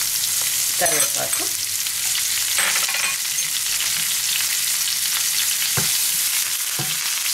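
Hot oil sizzling steadily in a non-stick pan as curry leaves, green chillies, ginger and cumin fry for a tempering. A spatula stirs them, with a couple of sharp knocks against the pan near the end.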